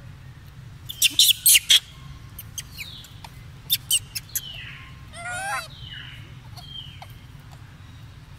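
Golden snub-nosed monkeys squeaking and chirping: a quick run of sharp high chirps about a second in, more a couple of seconds later, and a wavering, falling call about five seconds in, with short falling squeaks between.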